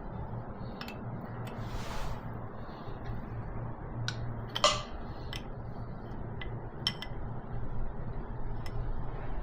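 Metal hand tools, wrenches, clinking and clanking as they are handled, in scattered single clinks with one louder clank about four and a half seconds in, over a steady low hum.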